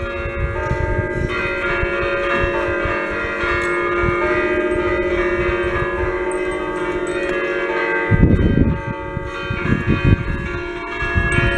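Church bells ringing: the five-bell peal in E-flat cast by Achille Mazzola in 1951, many tones sounding together and overlapping without a break. A low rumbling noise swells up about eight seconds in.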